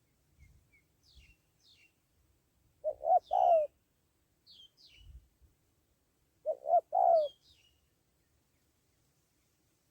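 Spotted dove cooing: two three-note coo phrases about four seconds apart. Faint high chirps of small birds sound between them.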